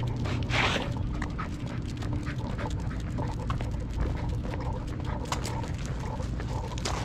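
Corgi panting as it walks on the leash, over a steady low rumble, with a brief rustling burst about half a second in.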